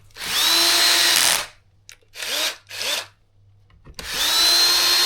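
Cordless power drill-driver running in bursts while tightening screws during a steering wheel fitting: a run of about a second with the motor's whine rising then holding, two short blips, then another long run near the end.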